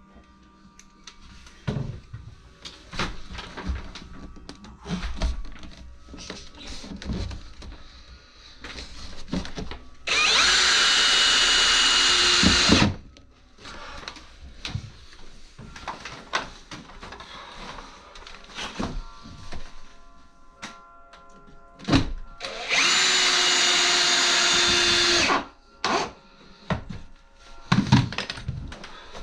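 A power drill runs twice at full speed, each time for about two and a half seconds, drilling into the wooden window ledge. Between the runs come scattered knocks and clatter of handling tools and wood.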